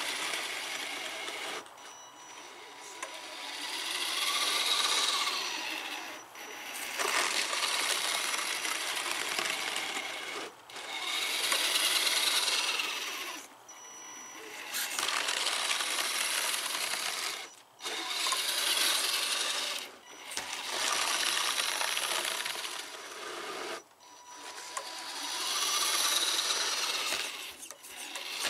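Axial SCX10 RC crawler's electric motor and gear drivetrain whining in repeated bursts of throttle while its 3D-printed plow blade pushes and scrapes snow. There are about eight surges, each a few seconds long, with brief drops in between as the throttle is let off.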